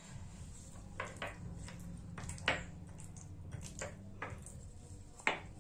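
Steel spoon and ladle clinking against a glass bowl and a stone counter while mashed yam is mixed by hand, with soft squishing: about seven short clinks, the loudest near the end, over a low steady hum.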